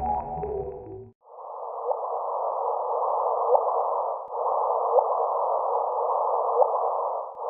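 Spacecraft radio and plasma-wave recording turned into sound: a band of hiss over a steady low hum, with short rising chirps about every second and a half. It starts about a second in, after layered ambient tones cut off.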